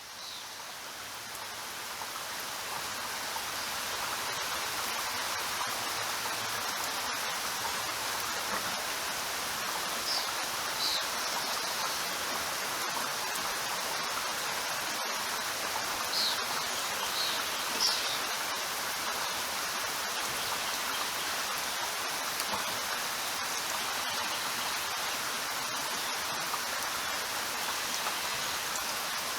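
Steady rain hiss that fades in over the first few seconds and then holds even. A few faint, short high chirps come through in the middle.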